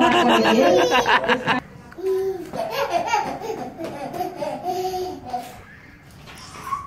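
A child laughing hard in quick bursts, cut off abruptly about one and a half seconds in; then a quieter, high-pitched small child's voice squealing and babbling for a few seconds.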